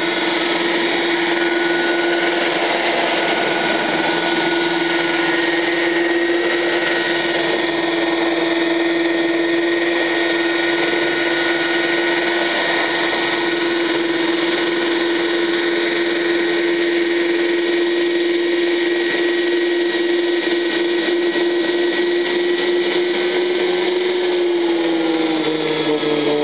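Radio-controlled scale model of a UH-72 Lakota helicopter running, its motor and main rotor making a steady whine. Near the end the pitch slides down as it throttles back.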